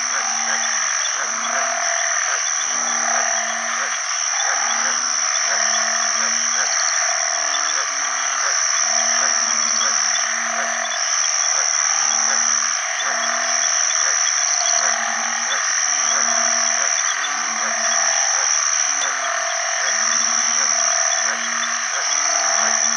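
Banded bullfrogs (Kaloula pulchra) giving their low, short mating calls, repeating in pairs and groups about once a second: males calling for mates after rain. Behind them are a steady high-pitched drone and a dense chorus of other calling animals.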